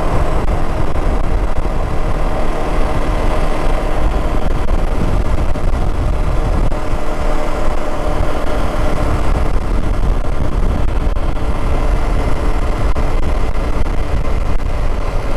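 Motorcycle engine running steadily at road speed, with a low rumble of wind noise.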